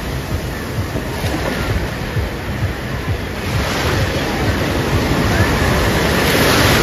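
Sea surf breaking and washing through the shallows, swelling louder near the end as a wave breaks close by. Wind buffets the microphone.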